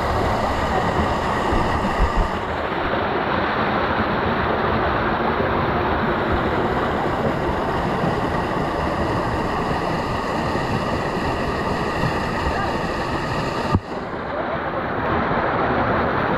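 Steady rush of water running down a pool water slide, heard close up. Near the end there is a sharp click and the rushing changes character.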